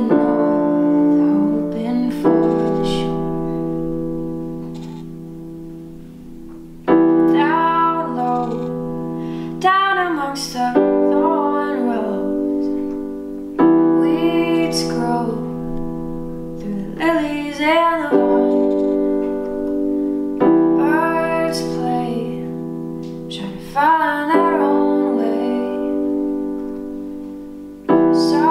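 A woman singing to her own digital piano accompaniment. Sustained piano chords change every few seconds, and she sings phrases over them three times, with quieter stretches of held chords in between.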